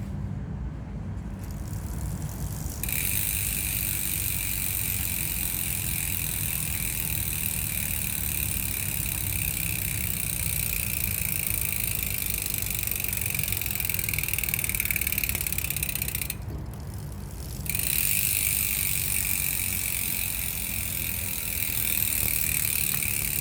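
Aeroic AM-8.5 rear bicycle hub freewheeling, its 6-pawl, 72-click ratchet making a fast, even buzz of clicks that is neither very loud nor quiet. It starts about three seconds in, stops for about a second about two-thirds of the way through, then starts again.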